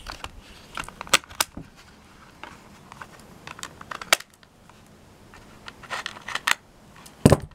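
Scissors snipping through a cardboard-backed plastic blister pack: irregular sharp clicks and snips, with the loudest snap near the end.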